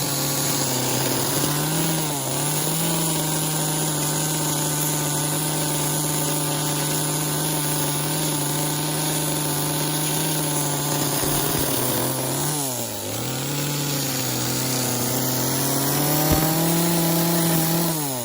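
Gas chainsaw running at high revs while cutting into wood. The engine pitch dips briefly about two seconds in and again about thirteen seconds in, then drops as the throttle is released near the end.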